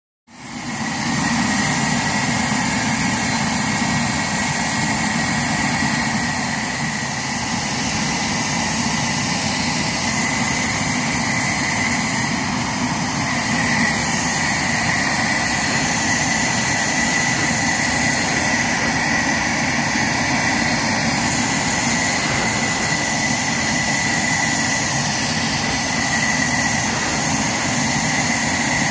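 Small homemade jet turbine on a jet sled running steadily: a constant roar with a high, even whine, cutting in abruptly at the start.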